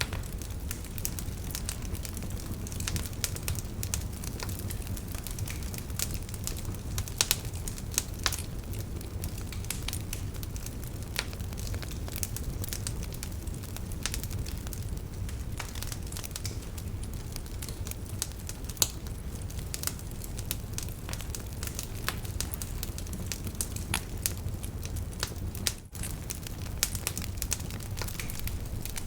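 Wood fire burning in a fireplace, crackling, with irregular sharp pops over a steady low rumble of the flames.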